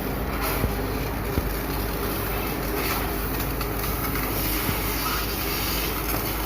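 A machine running steadily, a low hum with an even hiss over it.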